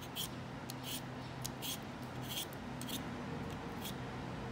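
Vegetable peeler scraping strips of skin off a raw potato: about six short, crisp scraping strokes at an uneven pace, over a low steady hum.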